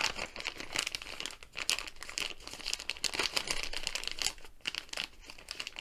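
Clear plastic bag crinkling in the hands as it is worked open to get a plastic tray out, an irregular run of quick crackles.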